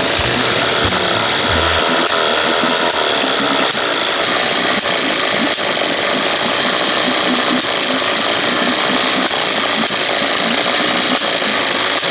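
Small two-cylinder engine running steadily, with faint ticks about once a second. It runs better after a spark plug thread insert repair, but the owner sees it blowing out ("popping") at the back.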